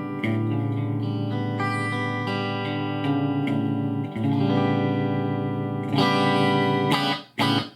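Electric guitar played through an amplifier with a Celestion 12-inch guitar speaker: a run of ringing chords that change every second or so, ending with a short last chord that cuts off suddenly.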